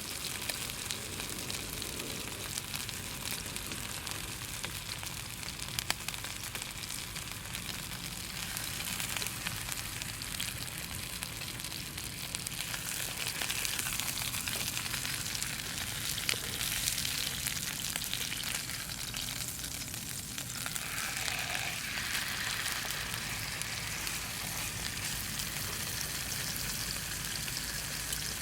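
Beef steak sizzling as it cooks over a wood campfire: a steady frying hiss with fine crackling and an occasional sharp pop.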